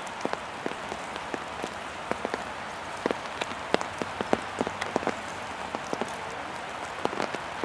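Rain falling: an even hiss with irregular sharp drop ticks several times a second.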